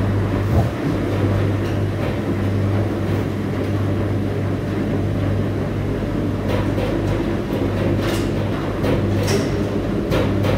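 Ipso WE165 35 lb commercial front-load washer running a wash with bed linen, its drum tumbling under a steady motor hum. There is a thump just after the start and a run of short sharp sounds in the second half.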